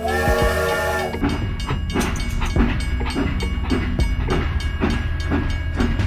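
A toy steam train's whistle blows for about a second. Then the train's rhythmic clickety-clack runs on, about two beats a second, over a steady low hum.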